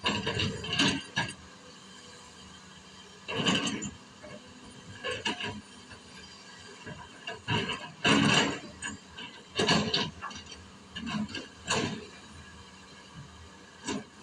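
Excavator loading quarry stone: about a dozen irregular metallic clanks and rattles of the bucket and rock, heard from a distance over a faint steady machine hum.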